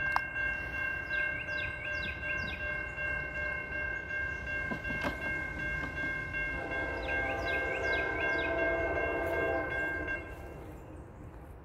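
Norfolk Southern locomotive air horn sounding a steady held chord for the grade crossing, cutting off about ten seconds in.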